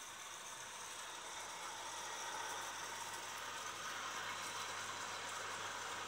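AEG front-loading washing machine running mid-cycle: a steady low hum under an even rushing noise, growing slightly louder about two seconds in.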